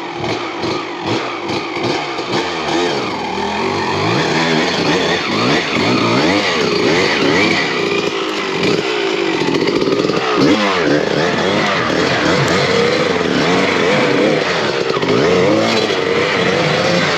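Dirt bike engine working hard on a steep hill climb, its revs rising and falling again and again as the throttle is worked. The revs are choppy for the first few seconds, then held higher and wavering.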